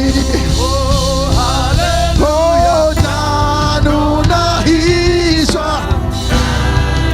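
Gospel worship music: a voice singing a slow, held melody over steady instrumental accompaniment.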